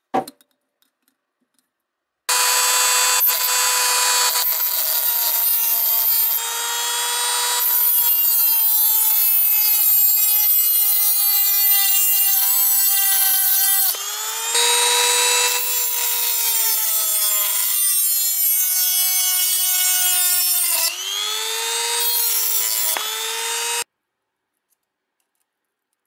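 A handheld rotary tool cutting through a mesh strainer's steel wire handle: a motor whine over a harsh grinding hiss, its pitch slowly sagging as the tool bites, then cutting off abruptly near the end.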